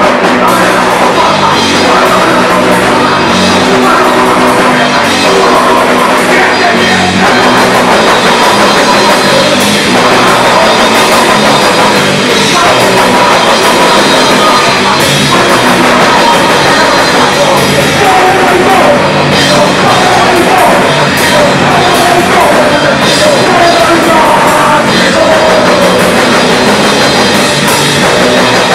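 Live punk rock band playing at full volume: electric guitar and drum kit, steady and loud without a break.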